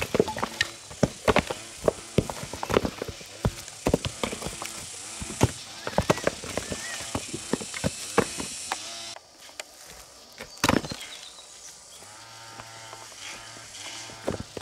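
Rapid, irregular knocking and scraping over a steady hiss for about nine seconds, then one loud single knock. Near the end come short pitched calls and a low steady hum.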